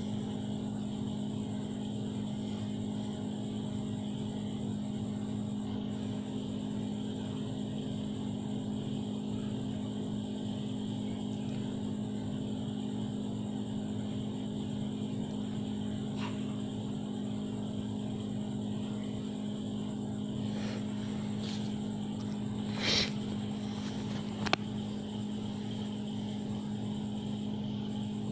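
A steady mechanical hum at one constant pitch, like a small motor running. A few faint clicks come through it, and there is one brief louder knock about three-quarters of the way in, followed by a sharp tick.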